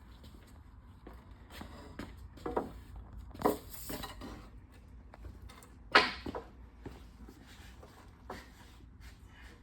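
A playpen section being lifted and fitted into place: scattered knocks and clunks of the panel and its hardware, with one sharp knock about six seconds in as the loudest.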